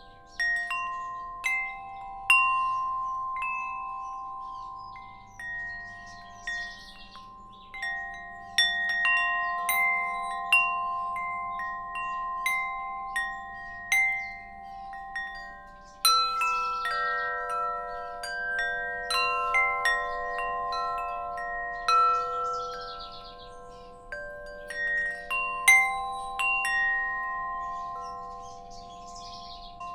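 Wind chimes ringing, struck irregularly, their notes sustaining and overlapping. Birds chirp faintly in the background.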